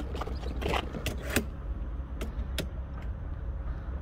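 Loaded folding wagon rolling over pavement: a steady low rumble from the wheels with scattered clicks and rattles from its frame and the lidded containers it carries.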